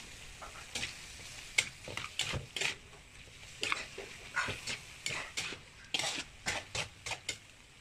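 A utensil stirring food in a frying pan, with irregular scrapes and knocks against the pan over a faint sizzle.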